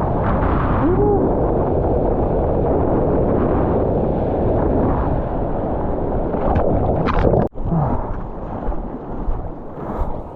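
Sea water rushing and wind buffeting a GoPro's microphone in the surf, a loud, steady wash. About seven and a half seconds in it drops out sharply for a moment, then comes back quieter and choppier.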